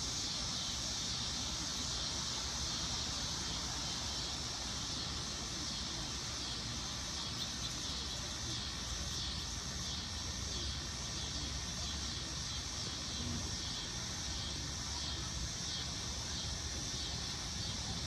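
A male dog-day cicada giving its mating call: a high, steady buzzing whine, with a slight pulsing partway through.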